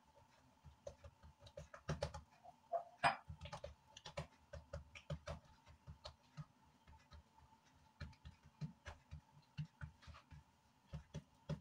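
Hands patting and pressing a ball of yeast dough flat on a granite countertop: a run of soft, irregular taps and slaps, one louder slap about three seconds in.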